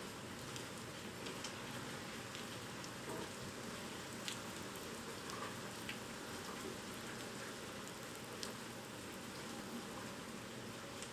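Typhoon rain falling steadily, with scattered sharper drop hits now and then.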